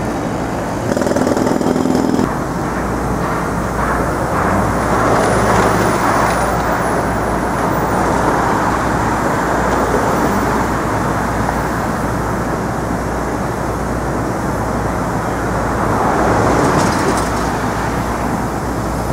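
City street traffic: a steady wash of passing vehicles with a low rumble underneath. A louder vehicle briefly stands out about a second in.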